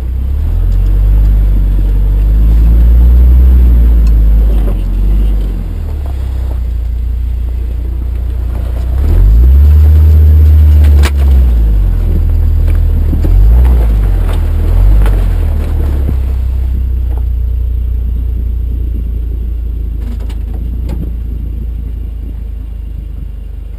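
Off-road vehicle's engine and drivetrain rumbling low as it crawls over rough ground, heard from beneath the chassis. The engine revs up and back down a few times, most strongly about ten seconds in, with a sharp click just after, then settles into a steadier, quieter rumble for the last several seconds.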